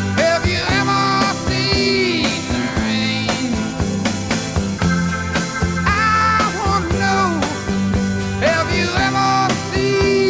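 Background rock music with a steady drum beat and a singing voice.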